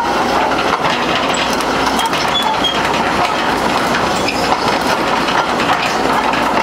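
Sumitomo S260F2 hydraulic excavator's diesel engine running steadily with a rattling clatter as the upper structure swings round.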